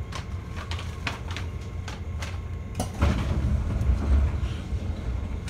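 Inside a stopped 211 series electric train: a steady low hum, with scattered clicks and knocks and a louder thud about three seconds in.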